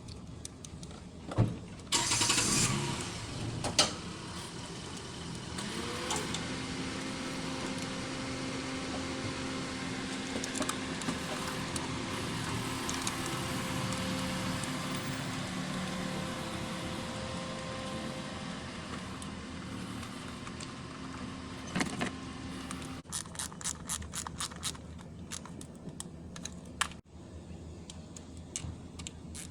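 Keys jangling, then a 2015 Toyota Corolla's four-cylinder engine cranking and catching, rising briefly and settling into a steady idle. The engine has been logging ignition-coil circuit codes P0351, P0353 and P0354. A run of quick clicks follows near the end.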